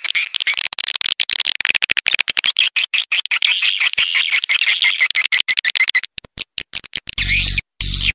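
Swiftlet lure call recording: a fast, dense chatter of clicks and chirps that thins out after about six seconds, followed near the end by three short bursts of squeaky chirps with a low buzz under them.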